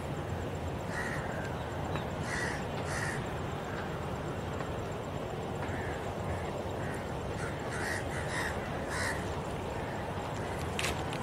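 Crows cawing, a scattering of short harsh calls, over a steady low rumble. A single sharp click sounds near the end.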